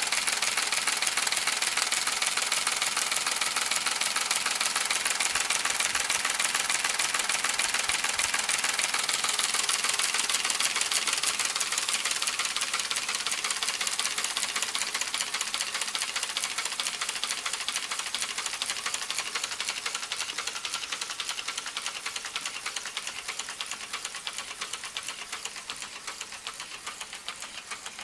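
Homemade Otis T. Carr-style spinning device running at speed, its copper coils and commutator rotating and making a rapid, dense mechanical clatter. The clatter slowly grows quieter over the second half.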